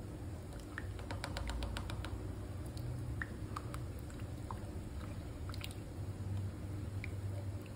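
Yellow plastic spoon stirring hot pepper paste into rice-water stock in a pan, with scattered light clicks and scrapes against the pan, clustered near the start and again near the end, over a steady low hum.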